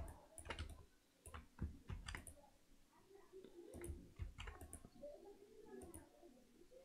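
Faint, scattered clicks from a computer keyboard and mouse as shortcut keys are pressed and the mouse is clicked, one or two clicks at a time.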